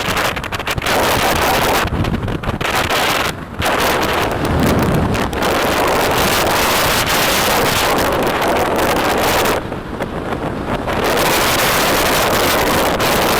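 Strong wind buffeting the microphone: a loud, uneven rushing roar that eases briefly twice, a few seconds in and again past the middle.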